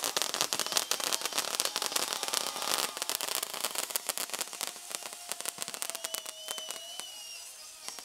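Fireworks display going off overhead: a dense, rapid crackle of many small bangs that thins out to scattered cracks after about three seconds.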